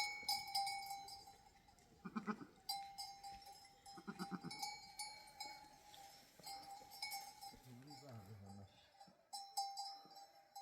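Bells on a grazing herd of goats and sheep clinking and ringing steadily, with a short bleat about 2 seconds in, another about 4 seconds in, and a lower call near 8 seconds.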